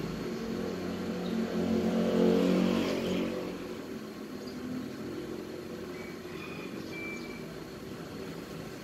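A vehicle's engine hum that swells to its loudest about two seconds in and then fades, as of a vehicle passing by.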